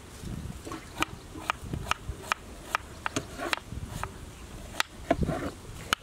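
Kitchen knife slicing a red bell pepper into strips on a wooden cutting board: crisp cuts through the pepper, each ending in a sharp tap of the blade on the board, roughly two taps a second.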